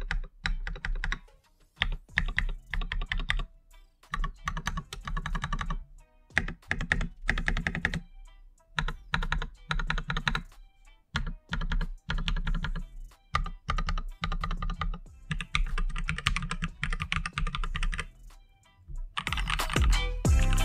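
AKKO 3108 RF mechanical keyboard's long stabilized keys pressed repeatedly in short runs of clacks, a stabilizer test. Music comes in near the end.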